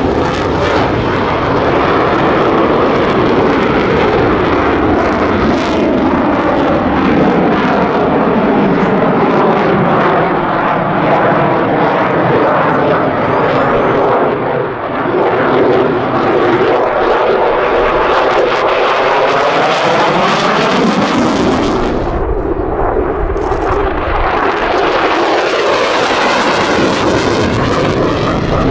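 F-16 Fighting Falcon jet flying overhead at a display: loud, continuous jet noise with a slow sweeping, phasing whoosh as the aircraft moves across the sky. About 22 seconds in the high hiss briefly fades while a deep rumble swells, then the hiss builds again.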